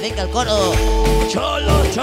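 Cumbia music played loud over a dance-hall sound system, with a heavy pulsing bass beat and a voice-like melody over it.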